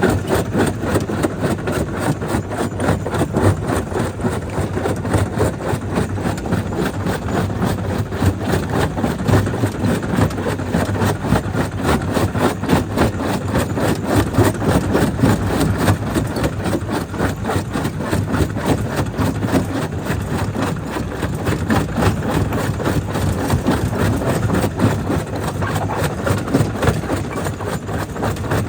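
Jaw crusher running as it breaks stone: a continuous heavy machine din, thick with rapid knocks and rattles.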